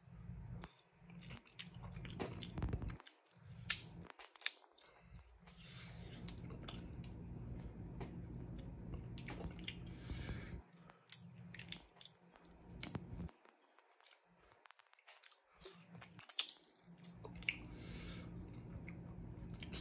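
Snow crab legs being cracked open and eaten close to the microphone: scattered sharp cracks of shell, the loudest about four seconds in, with chewing between them.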